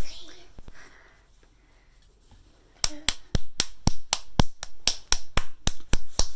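Quick sharp hand slaps, three to four a second, that pause for about two seconds near the start and resume about three seconds in.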